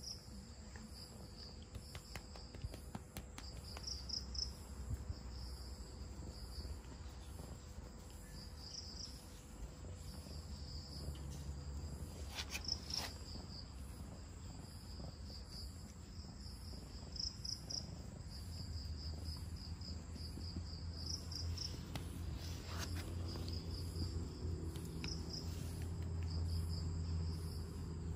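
Crickets chirping steadily in quick pulsing trills. Under them, a low rhythmic rumble, a domestic cat purring, builds up over the second half and becomes the loudest sound, with a couple of brief soft clicks along the way.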